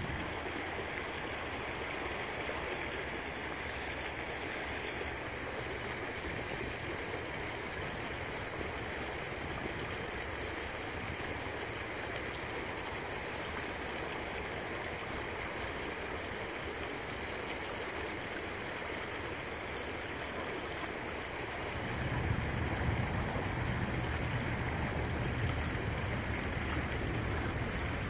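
Shallow stream flowing steadily over a stony bed, a constant rush of water. After about twenty seconds a low rumble joins and the sound grows a little louder.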